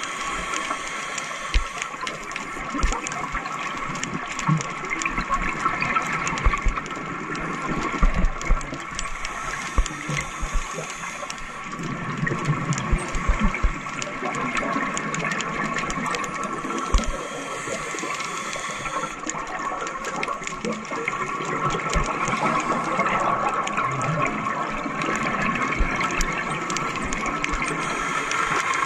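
Underwater gurgling and bubbling of scuba divers' exhaled air streaming from their regulators, coming in irregular surges, over a steady high hum.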